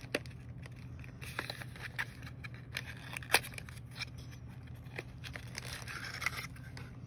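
Stamps and their packaging handled on a tabletop: scattered light clicks and taps, one sharper click a little past the middle, and light rustling toward the end, over a low steady hum.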